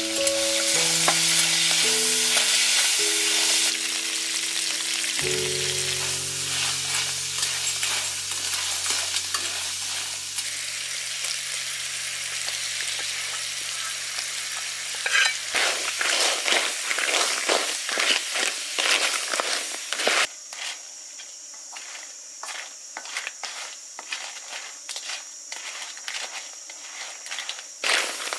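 Pieces of box crab hitting hot oil in a wok with a loud sizzle, then frying steadily. In the second half a spatula stirs the pieces, clicking and scraping against the shells and the wok, and the sizzle falls lower about twenty seconds in. A soft melody plays over the first half.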